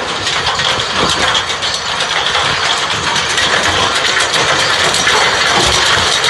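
John Deere tractor engine running as it pulls a Kivi-Pekka stone picker, with a dense, continuous clatter of stones rattling against the picker's metal as it gathers them from the field.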